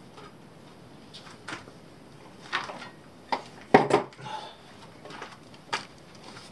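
Scattered clicks and knocks of tools and small parts being picked up and set down on a workbench, with the loudest knock a little before four seconds in.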